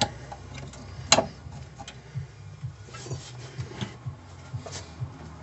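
Metal clicks and clacks of a rear drum brake shoe being fitted by hand onto the backing plate against the wheel cylinder. One sharp click about a second in is the loudest, with a few lighter clicks after it.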